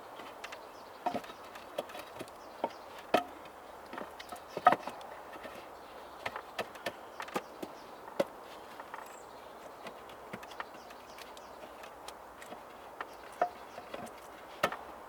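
Scattered light wooden knocks and clicks, irregular, as sticks are handled and set in place, with a few sharper knocks among them.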